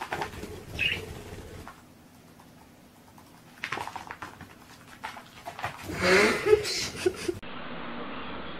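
A pet's paws and claws scrabble and skitter on a parquet floor as it chases a budgie. There is a short high chirp about a second in and a louder cry near six seconds in. After a cut, a steady hiss follows.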